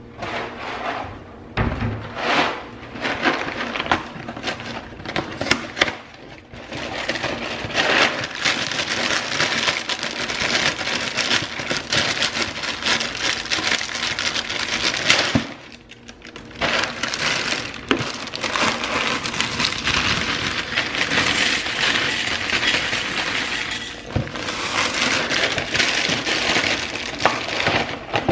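Dry cereal flakes poured from the box into a glass bowl: a dense crackling rustle of flakes and the plastic liner bag. It stops briefly about halfway through, then goes on.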